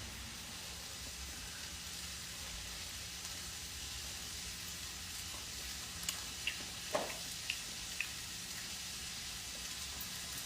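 Chicken frying in a pan, a steady faint sizzle, with a few light clicks in the second half.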